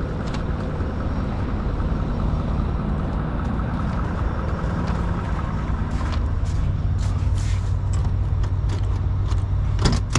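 Truck engine idling, a steady low drone, with a few sharp clicks near the end.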